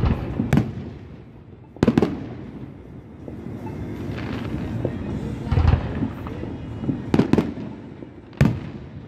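Aerial firework shells bursting overhead: a run of sharp bangs, several in quick pairs, over a steady rumble from the display.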